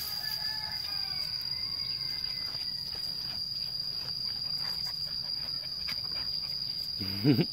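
Insects droning in one steady, high-pitched, unbroken tone.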